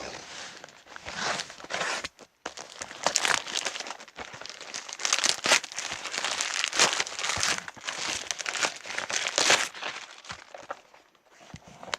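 Parcel packaging being cut and pulled off by hand: crinkling and tearing of wrapping and tape in irregular bursts, busiest in the middle and dying down near the end.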